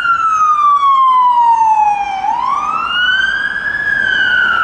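Toy ambulance's electronic siren wailing, its pitch sliding slowly down, then sweeping back up about two seconds in and falling again.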